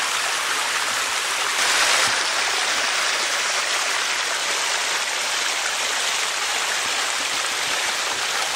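Stream water running steadily, swelling slightly for a moment about two seconds in.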